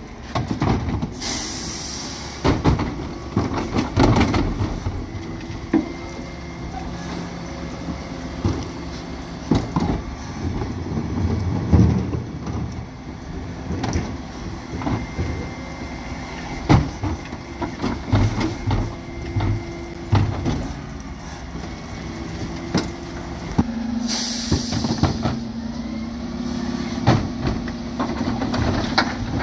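Dennis Elite 6 refuse truck at work on its Terberg OmniDe rear bin lift: plastic wheelie bins knock and clatter against the lift, with a short burst of air hiss near the start and another near the end. For the last few seconds a steady drone from the truck comes in as the lift cycles.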